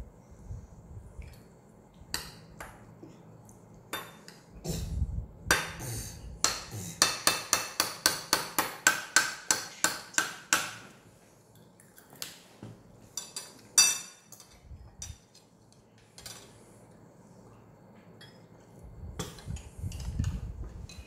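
Forks and spoons clinking and scraping against plates. In the middle comes a run of quick, even taps, about three or four a second, and a few seconds later one sharp clink.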